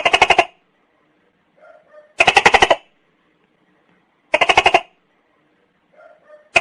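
Tokay gecko calling: short bursts of rapid, rattling pulses, each about half a second long, repeated roughly every two seconds, with another burst starting near the end.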